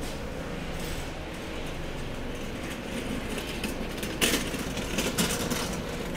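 A steady low mechanical hum with a few faint level tones. About four seconds in, a run of sharp clicks and rattles begins as a hand-pushed delivery cart rolls past on the sidewalk.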